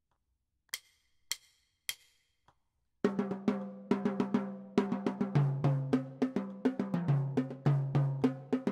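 Four sharp stick clicks about half a second apart count off the beat, the last one faint. About three seconds in, a marching drum line starts a cadence: rapid snare drum strokes over a rhythm of pitched bass drums.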